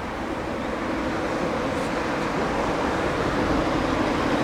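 Military jet engine noise, a broad steady rumble with a low hum, growing gradually louder.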